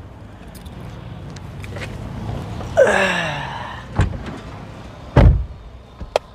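A sedan's driver door is slammed shut with a heavy thump about five seconds in, after a lighter knock a second earlier. Before that, a vehicle passes close by, its engine pitch dropping as it goes, and a small click comes near the end.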